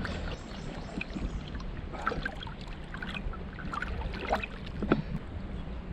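Legs wading through shallow river water, sloshing and splashing irregularly with each step, over the running of the river current. One sharper, louder sound stands out about five seconds in.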